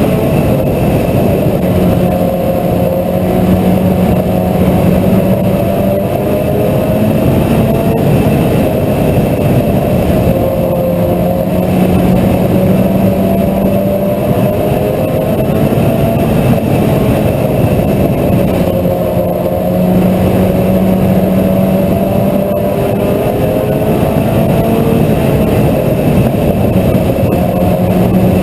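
Mini stock race car engine running hard at racing speed. It is loud and continuous, and its pitch falls and rises again in a repeating cycle every several seconds.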